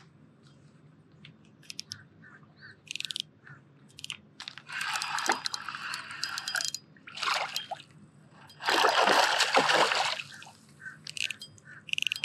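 A hooked grass carp splashing and thrashing at the water surface in several bursts, the longest and loudest late on, with short scattered clicks before them.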